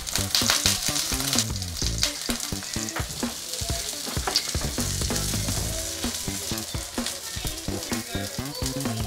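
Egg-battered oysters sizzling and crackling as they pan-fry in oil in a frying pan.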